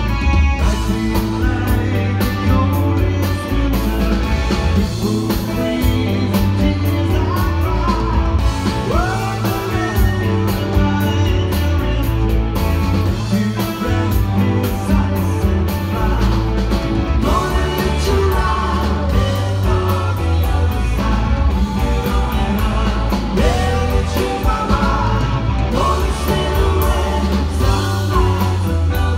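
Rock band playing live: electric guitar over bass and drums, with singing.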